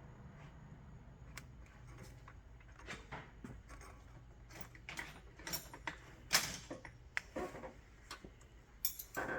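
Scattered light clicks and knocks of tools and parts being handled while working on a car, with a sharper knock about six seconds in and a few more near the end.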